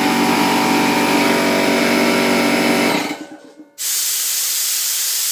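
Air compressor running steadily, then shutting off about three seconds in. About a second later, compressed air hisses out loudly for about a second and a half as the pressure is bled down to 80 psi.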